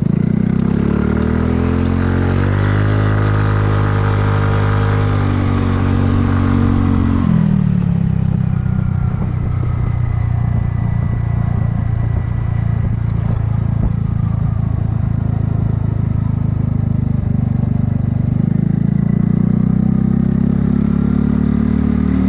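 Kymco People 250 scooter's single-cylinder four-stroke engine under way, its exhaust leaks sealed with high-heat epoxy. The engine speeds up over the first few seconds and holds, drops back about seven seconds in, cruises lower, then speeds up again near the end. There is wind noise in the first few seconds.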